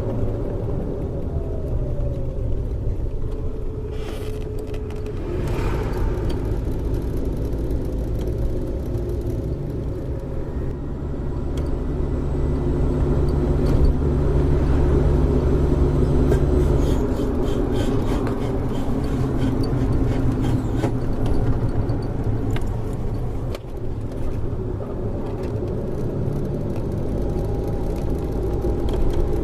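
Suzuki Jimny JA11 on the move, a steady rumble with a drone running through it that grows louder for a few seconds around the middle. This is the abnormal noise of a failing front wheel hub bearing, one that turned out to be seizing.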